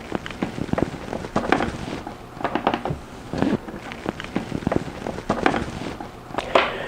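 Irregular clicks and rustles of an Ethernet cable being handled and its RJ45 plug pushed into a network switch port.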